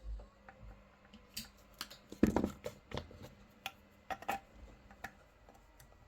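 Irregular small clicks and taps, with a louder clattering knock a little over two seconds in.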